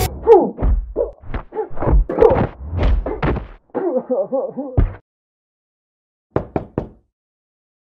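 A run of thumps and knocks mixed with short, muffled vocal sounds, ending in a wavering muffled hum. After a pause, three quick sharp clicks come near the end.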